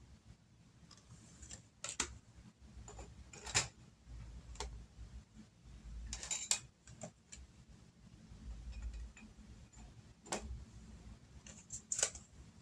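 Oracle cards being handled and shuffled: soft irregular clicks and taps of the card stock, a second or two apart.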